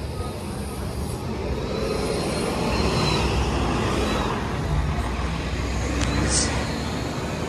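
City transit bus driving past close by and pulling away, its engine rumble building up as it passes. There is a faint whine, and a brief hiss about six seconds in.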